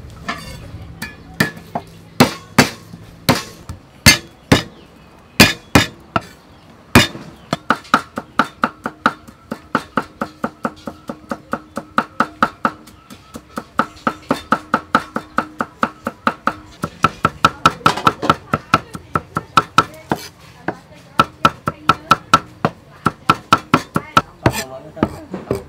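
Cleaver mincing garlic on a thick round wooden chopping block: a few heavy, spaced chops over the first seven seconds, then a fast, steady run of chops, several a second, with a slight metallic ring from the blade.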